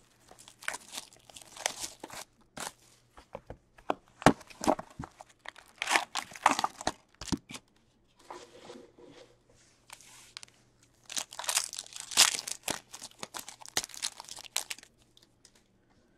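A box of 2020-21 Upper Deck Trilogy hockey cards being opened and its foil packs torn open: repeated bursts of tearing and crinkling wrapper, with a couple of sharp clicks. The sounds stop about a second before the end.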